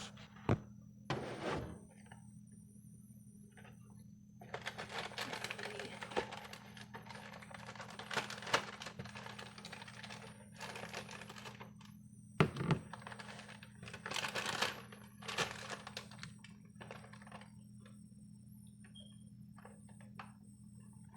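Kitchen clean-up handling: scattered clinks and knocks of dishes and utensils, with stretches of scraping and rustling while batter is poured back into its bag. There is a steady low hum underneath and one louder knock about halfway through.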